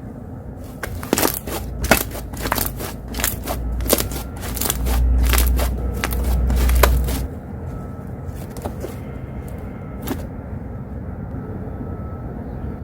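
Slime being squeezed and poked, giving a quick run of sharp clicks and pops through the first seven seconds, then only a few. Under the pops, a loud low rumble of outside noise through an open window swells midway and fades out.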